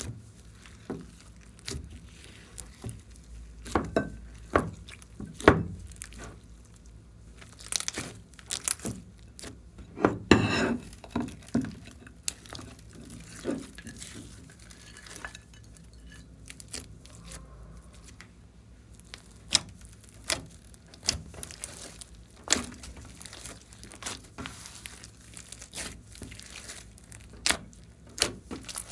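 Sticky slime being squeezed, stretched and pulled apart by hand, giving irregular wet snaps, crackles and clicks, with a longer run of crackling about ten seconds in.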